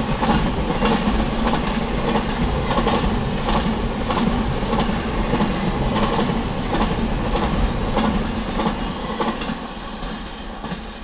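Double-stack container train's cars rolling past on steel wheels, a steady rumble with regular clacks of wheels over the rail joints. The sound falls away over the last few seconds as the end of the train passes.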